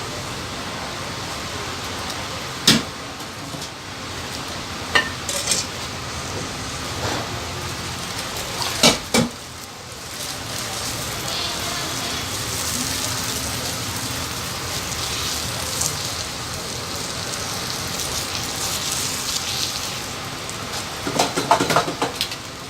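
Dosa sizzling on a hot griddle, a steady hiss, with a metal spatula striking and scraping the griddle several times, including a quick cluster of clanks near the end.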